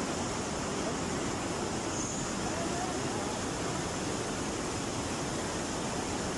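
Muddy flash-flood water rushing down a wadi channel: a steady, even rush.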